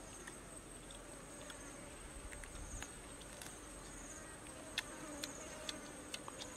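Insects trilling steadily at a high pitch, with a pulsing chirp repeating just below it, and a few faint clicks scattered through, one a little louder about five seconds in.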